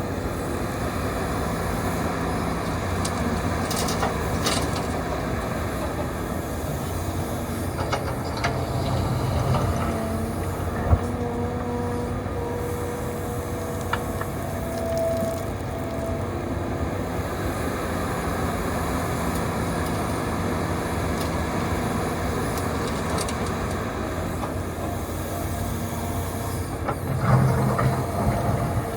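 Hitachi 350 excavator's diesel engine running under load as it digs gravel, with steady tones that shift in pitch as it works. One sharp knock about eleven seconds in, and louder working near the end.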